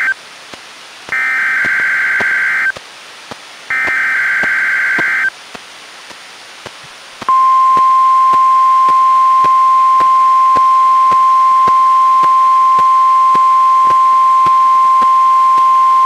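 NOAA Weather Radio Required Weekly Test sounding through a Reecom R-1630 weather radio. The tail of one SAME header data burst is followed by two more buzzy digital bursts about a second apart, then a couple of seconds of faint radio hiss. Then comes the steady single-pitch 1050 Hz weather radio alert tone, held for about nine seconds.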